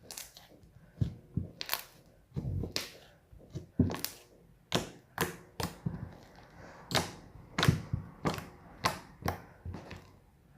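Large slime being kneaded and folded by hand, making irregular sharp clicks and pops, roughly two a second.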